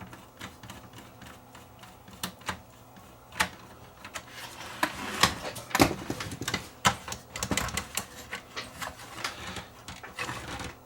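Irregular clicks, taps and scraping of hands and tools working on the casing of a 1980s Panasonic CD player, tugging at a part that is on there tight. The clicking and rattling grows busier about four seconds in.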